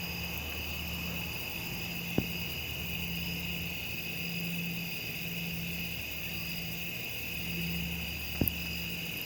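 Distant low mechanical rumbling hum, non-stop, swelling and fading about once a second, over steady insect chirring, with a couple of faint clicks.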